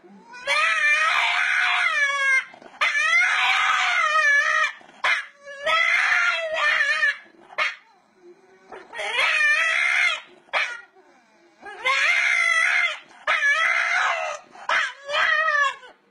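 French bulldog howling in about six long calls, each lasting a second or two with its pitch wavering up and down, separated by short pauses.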